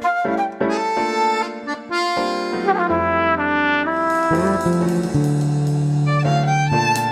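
Electronic synthesized instrument sounds playing a short melody, the timbre changing every second or so as one instrument gives way to the next. A low held bass line comes in about three seconds in.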